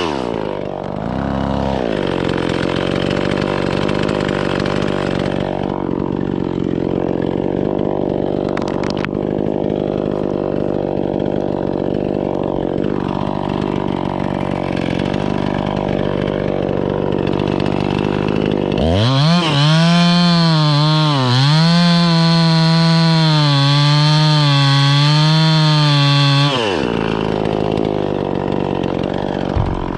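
Two-stroke chainsaw running at a steady lower speed, then opened up to full throttle about two-thirds of the way in. At full throttle its pitch dips and recovers as the chain loads in the poplar wood, then drops back to the lower speed after about eight seconds.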